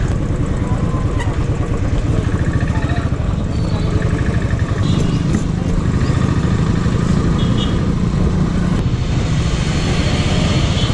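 Royal Enfield Bullet single-cylinder engine running steadily at low speed, its exhaust pulsing, as the bike rides through slow town traffic.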